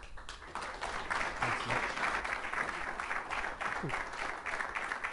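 Audience applauding, many hands clapping steadily. It starts abruptly as a speaker is introduced.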